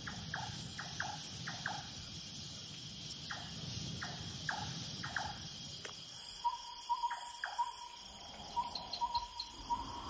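Night-time chorus of crickets and other insects, a steady high trill, with short scattered chirps. About six seconds in, a quick run of short repeated notes at one pitch joins in.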